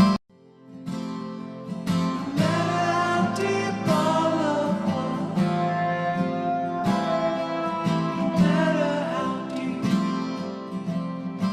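Music: a strummed acoustic guitar with a singing voice carrying the melody, cutting out briefly right at the start and then coming back.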